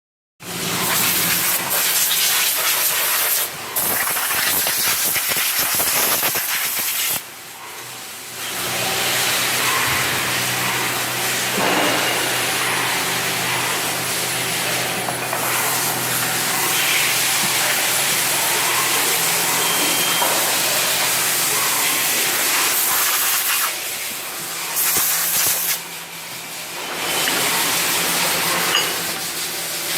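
Machine-shop noise from CNC machining: a steady, loud hiss with a low machine hum beneath, dipping briefly a few times.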